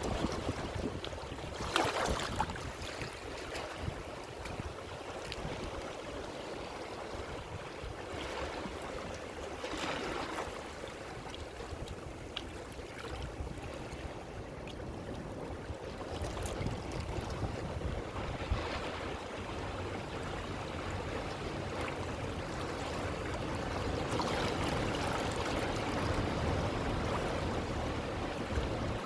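Ocean waves breaking and washing up the shore: a steady wash of surf that swells with each incoming wave, about every eight seconds.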